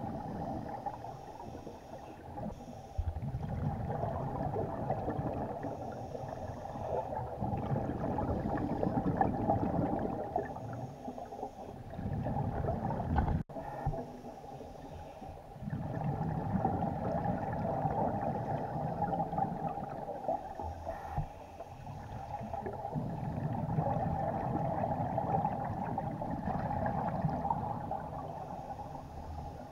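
Scuba diver breathing through a regulator, heard underwater: long, low bubbling rushes of exhaled air every few seconds, alternating with quieter inhalation stretches.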